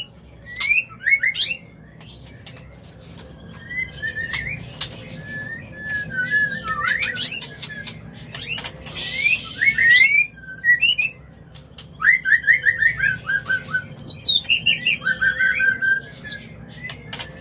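White-rumped shamas' mating calls: a varied run of gliding whistles, quick trills and chattering notes, with a harsh rasping call about nine seconds in. These are the calls of shamas in breeding condition.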